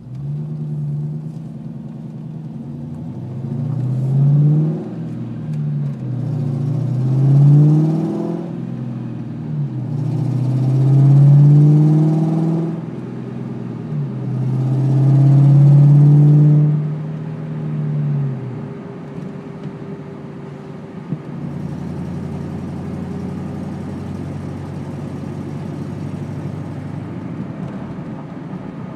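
A 2002 Ford Mustang GT's 4.6-litre V8 is revved several times, each rev rising and falling back, then settles to a steady idle. The engine has an exhaust leak.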